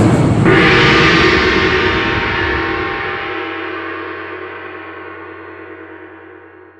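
Logo sound effect: a jet-like rush that gives way, about half a second in, to a struck, gong-like ringing chord. The rush stops about three seconds in, and the chord rings on and slowly dies away.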